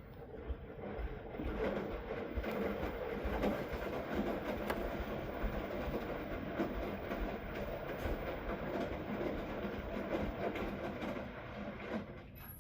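Washing machine running its rinse, drum turning and clothes and water sloshing with a steady churning sound. It starts about half a second in and stops about twelve seconds in.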